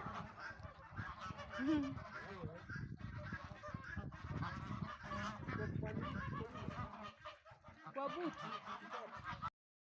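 A flock of domestic geese honking and calling over one another as they feed. The honking cuts off suddenly about nine and a half seconds in.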